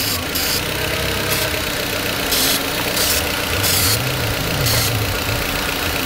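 A VW Beetle's 1.8-litre turbo four-cylinder engine idling while carburetor cleaner is sprayed from an aerosol can over its vacuum fittings in about seven short hisses, as a test for a vacuum leak. The engine note rises and falls slightly about four seconds in.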